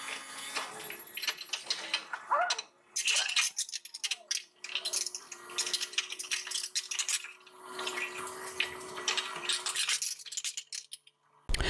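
Sheet metal and hardware rattling, clinking and scraping as a car's inner fender panel is worked into place in the fender well.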